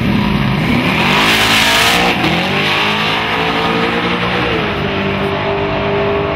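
Two drag cars, a classic Chevrolet Chevelle and a Fox-body Ford Mustang, launching off the line together, their engines climbing steadily in pitch as they accelerate away. The pitch drops once about four and a half seconds in, then the engines run on more steadily down the track.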